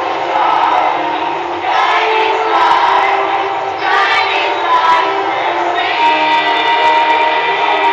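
Loud music with group singing, over crowd noise from an audience.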